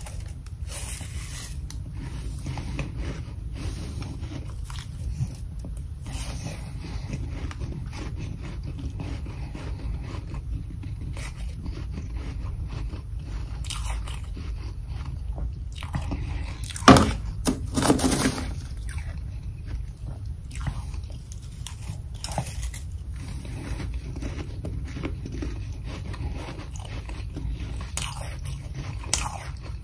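Mouth-close chewing and crunching of large mouthfuls of powdery humidifier freezer frost, as many irregular crisp crunches, with a spoon scraping frost in the bowl. A louder burst comes a little past halfway, all over a steady low hum.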